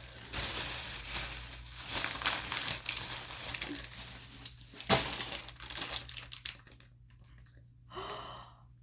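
Plastic packaging crinkling as it is handled and opened by hand, with a sharp snap about five seconds in. The crinkling stops about six and a half seconds in.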